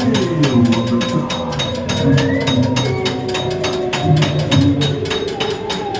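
Loud ride music from a fairground ghost train, a fast steady percussive beat with sliding tones over it.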